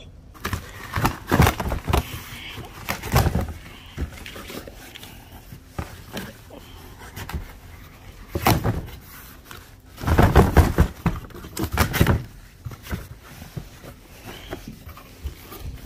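Packing tape being pulled off a cardboard shipping box and the flaps opened by hand: irregular bursts of tearing and rustling cardboard, loudest about ten to twelve seconds in.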